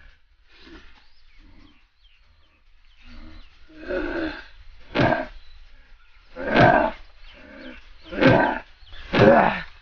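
A young man crying out in pain, held and bound, with a run of short loud wordless cries that start about four seconds in and come every second or two.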